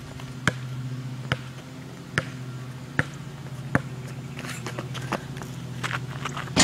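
A basketball dribbled on asphalt: five sharp bounces about 0.8 s apart, over a steady low hum. Near the end come quicker scuffs and knocks of sneakers on the pavement as the two players close in on each other.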